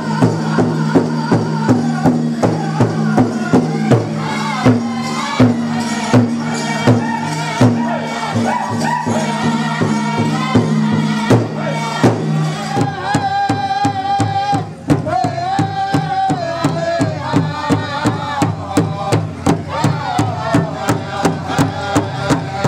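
Pow wow drum group singing: several voices chanting in high, wavering tones over a drum struck in a steady beat. About halfway through, the singers hold long high notes while the beat goes on.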